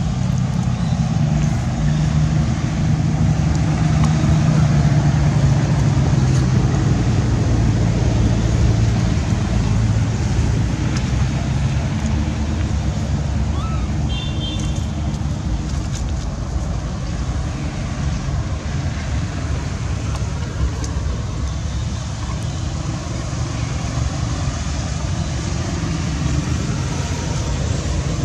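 Steady low engine rumble, like a motor vehicle running nearby, with a brief high squeak about halfway through.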